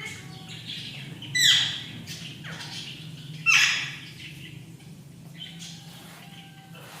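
Pet parrot squawking: two loud harsh calls, each sliding down in pitch, about two seconds apart, with softer chirps between and after them.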